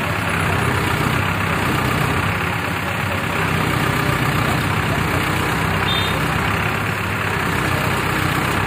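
Diesel engine of an Escorts Hydra mobile crane idling steadily.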